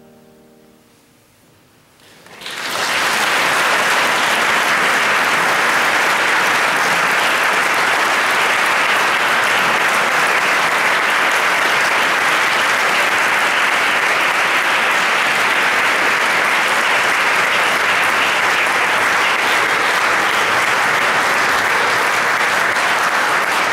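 The choir's final chord fades away, then about two seconds in the audience breaks into applause that rises quickly and holds steady.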